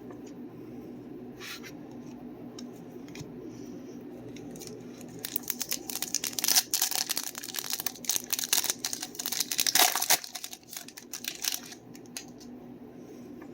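A foil trading-card pack being torn open and its wrapper crinkled: a dense crackling run lasting about six seconds, starting about five seconds in, over a steady low hum.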